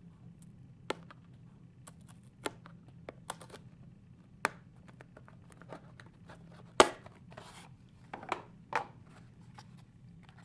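A fingernail picking and peeling at the seal on a small cardboard box: scattered light clicks and scrapes. A louder sharp click comes about seven seconds in, followed by a short rub of cardboard as the box is opened.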